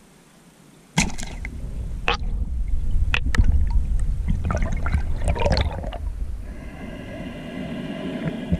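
Underwater water noise: a sudden start of rumbling, sloshing water moving over the camera housing, with scattered sharp clicks and knocks as the diver moves. Near the end it settles into a steadier hum with several even tones.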